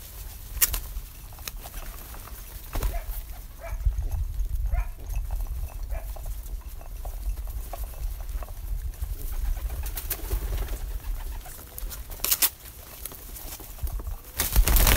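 Pigeons cooing while they feed, with scattered sharp taps and a steady low rumble underneath. A loud rush of noise comes in near the end.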